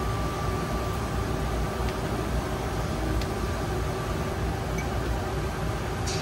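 Steady mechanical hum with hiss, a faint even tone held throughout; a short light click near the end.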